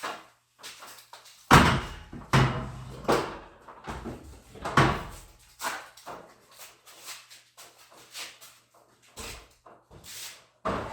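A heavy ladder being hauled up a staircase, banging and knocking against the stairs. The loudest bangs come in the first five seconds, then lighter knocks, and two more bangs near the end.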